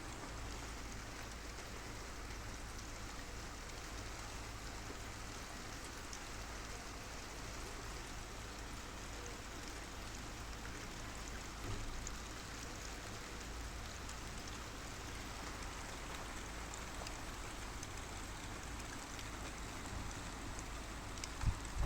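Steady rain falling during a thunderstorm, an even hiss with scattered drop ticks over a constant low rumble. A brief low thump about halfway and two more near the end.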